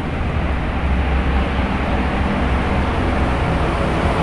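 Road traffic going past: a steady low rumble of engines and tyre noise.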